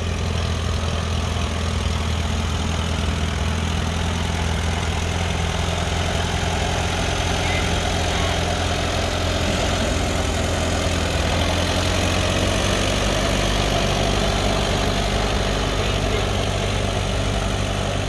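Vintage Allis-Chalmers farm tractor engine running steadily at low, idle-like speed while the tractor creeps along.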